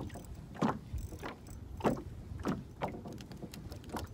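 Small waves slapping and lapping against the hull of an inflatable boat, an irregular series of splashes about every half second over a low steady rumble.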